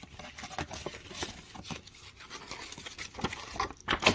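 Paper and cardboard being handled: an instruction card and tissue paper rustling and crinkling in an open box, with irregular light taps and a louder knock near the end.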